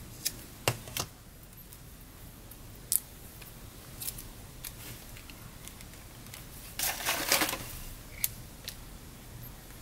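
Paper pieces and small craft tools handled on a work table: a series of light clicks and taps, with a short scratchy rustle of paper about seven seconds in.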